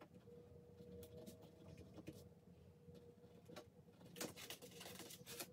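Near silence with faint, scattered scratches and taps of a pen writing on paper cards.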